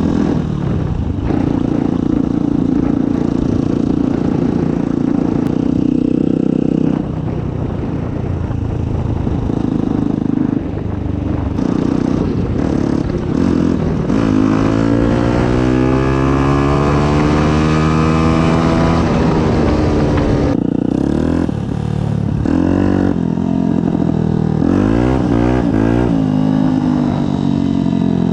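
Yamaha WR125's 125 cc single-cylinder four-stroke engine through an aftermarket Black Widow exhaust, being ridden. It holds a steady pitch at first, climbs in one long rising rev around the middle, then gives a run of short revs that rise and fall near the end.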